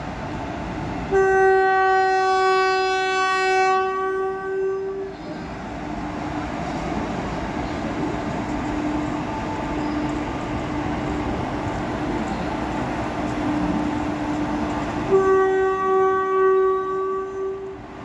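WAG-5 electric locomotive's air horn sounding two long blasts, each a single steady note, the first about a second in and the second near the end. Between them the locomotive rolls past on the rails with a steady running rumble.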